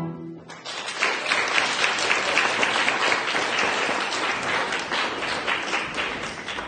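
The singers' last held note ends just after the start. Audience applause then breaks out and carries on densely before thinning near the end.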